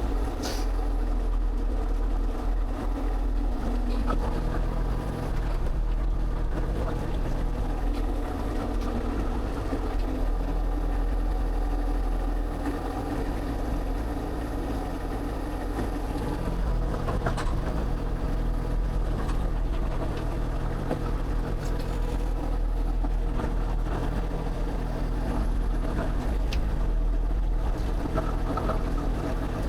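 Excavator's diesel engine running steadily, with a few sharp clanks.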